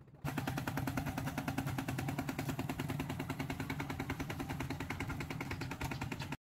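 Single-cylinder diesel engine of a two-wheel walking tractor chugging in a fast, even beat as it pulls a wooden trailer past. It cuts off suddenly near the end.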